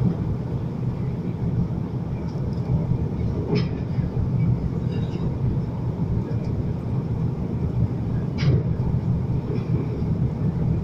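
Cabin noise of an Airbus A330-300 on approach, heard from a window seat over the wing: a steady low roar of its Rolls-Royce Trent 700 engines and rushing air. Two short clicks come about three and a half and eight and a half seconds in.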